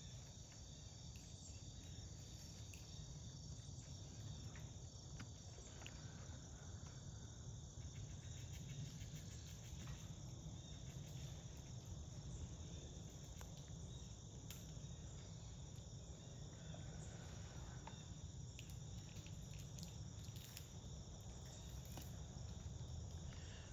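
Faint, steady chorus of insects, several high, continuous trills overlapping, over a low background rumble with a few faint clicks.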